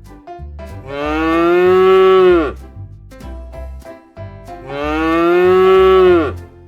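Cow mooing twice: two long calls, each dropping in pitch as it ends, over light background music.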